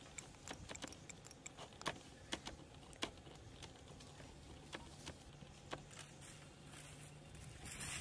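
Faint, scattered light clicks and twig snaps with leaf rustling as young macaques climb and wrestle among thin branches, with a short louder rustle near the end.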